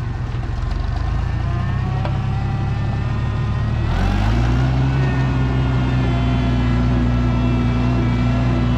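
Oliver 880 tractor's six-cylinder gasoline engine running as it drives. About four seconds in, the engine speeds up and settles at a steady higher pitch.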